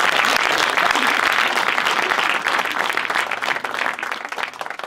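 Applause, many hands clapping together, dying away over the last two seconds.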